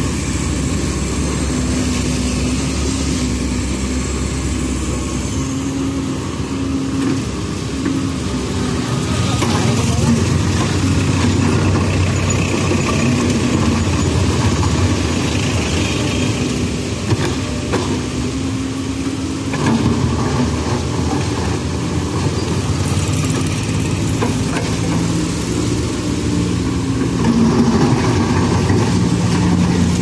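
Komatsu PC130 hydraulic excavator's diesel engine running under working load, its note shifting in pitch now and then as the arm and bucket move, with a few scrapes and knocks of the bucket in gravel.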